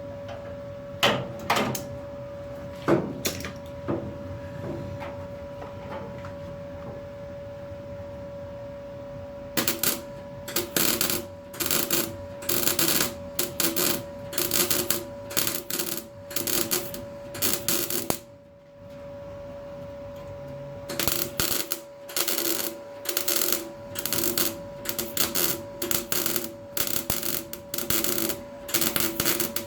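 Welder tacking a repair patch onto car bodywork in many short crackling bursts, one after another in quick runs with a pause in the middle, over a steady hum. A few sharp clicks near the start.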